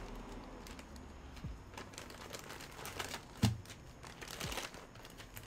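A pack of soft gel nail tips being handled: light scattered clicks and rustling, with one sharper knock about three and a half seconds in.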